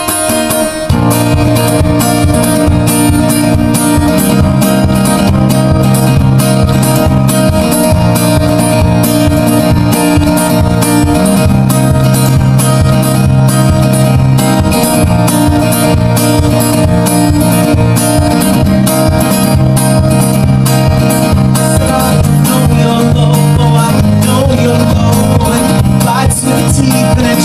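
Steel-string acoustic guitar strummed hard in a steady, driving rhythm, the chords changing every few seconds.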